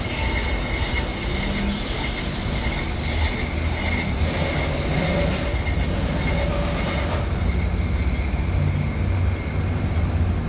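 Brake lathe running a slow finishing cut on a brake rotor: a steady mechanical hum and rumble with a faint high tone that comes and goes.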